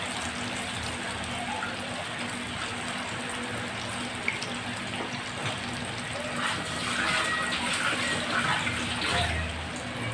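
Coated chickpeas deep-frying in hot oil in a kadai, a steady sizzle of bubbling oil. The sizzle grows louder and more crackly from about six seconds in and eases near the end.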